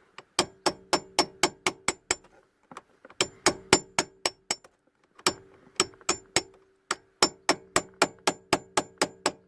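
Quick hammer taps on the head of a snap-off security bolt, driving it round to unscrew it from a steering lock. The taps come about four a second in four bursts with short pauses, each with a short metallic ring.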